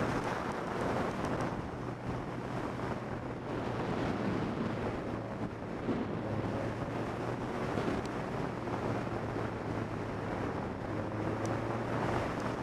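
Motorcycle riding at road speed: a steady wind rush on the microphone over the engine's even low hum.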